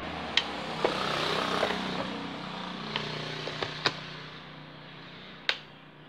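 Sharp clicks and knocks of a power plug and cord being handled and pushed into an extension-reel socket, several times. Behind them, a motor's hum swells about a second in and then fades away.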